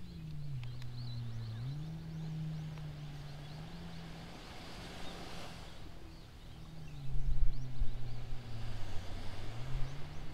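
A distant motor engine hums steadily, its pitch sinking, rising and sinking again slowly, with faint high bird chirps. About seven seconds in, wind buffets the microphone in low rumbling gusts for a couple of seconds.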